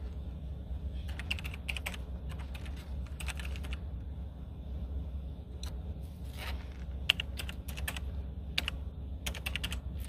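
Typing on a computer keyboard: short bursts of rapid key clicks with pauses between them, over a steady low hum.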